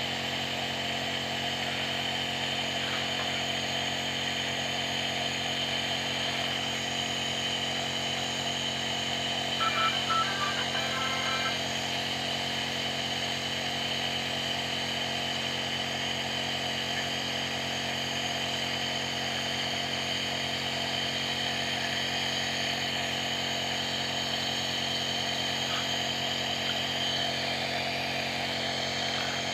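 Compressor nebulizer running steadily: a constant motor hum with the hiss of air driving the medicated mist, used to treat a child's cough. A short, slightly louder higher-pitched sound breaks in briefly about ten seconds in.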